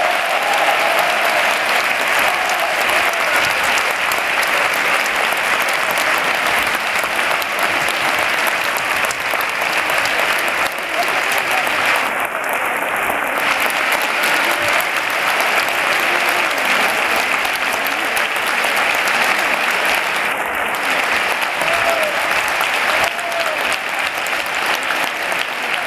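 Audience applauding steadily, an unbroken ovation with a few voices calling out over it.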